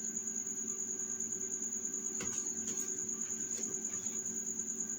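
Cricket chirping: a high, evenly pulsing trill, over a faint steady hum, with a few light clicks.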